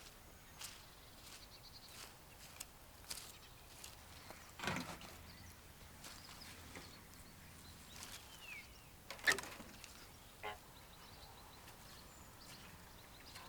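Quiet farmyard ambience: scattered light knocks and clicks, two louder ones about five and nine seconds in, with a few faint bird chirps.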